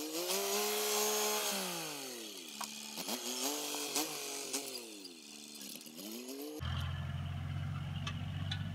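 A chainsaw revving up and down: one long rev, then several short blips. About two-thirds of the way through, the sound cuts off sharply and a Massey Ferguson tractor engine is heard running steadily.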